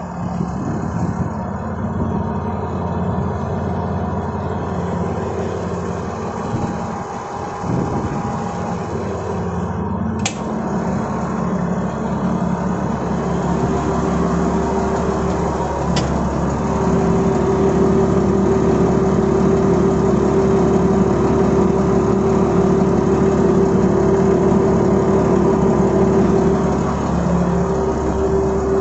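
Isuzu 6BG1 six-cylinder diesel engine of a Dalian CPCD60FA forklift idling steadily, growing a little louder past the middle. Two short clicks sound about ten and sixteen seconds in.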